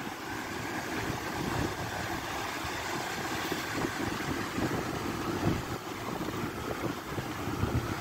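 Sea surf washing up a sandy shore in thin sheets of foam, a steady rush of water with wind buffeting the microphone.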